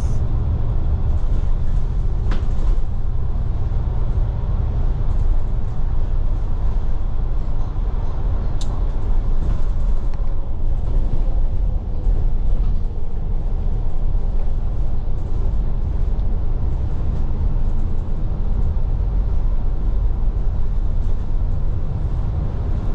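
Steady low rumble of a moving bus's engine and road noise, heard from inside the bus, with a couple of brief clicks about two and nine seconds in.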